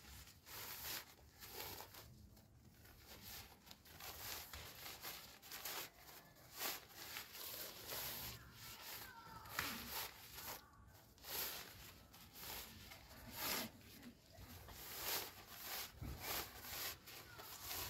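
Camouflage camping hammock fabric rustling and swishing as it is pulled, handled and gathered up by hand, in many short irregular rustles.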